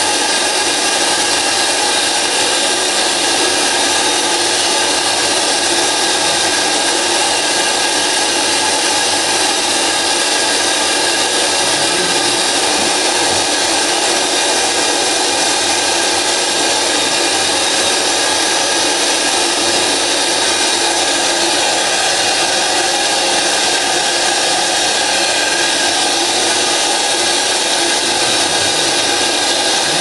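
Compressed-air operated wet and dry vacuum cleaner running, a steady loud rush of air as its floor nozzle picks up spilled flux powder.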